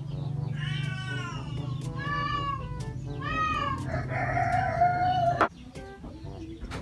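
A cat meows three times in short calls that rise and fall in pitch, then gives a longer, level-pitched call. A steady low hum runs under them and cuts off with a sharp click about five and a half seconds in.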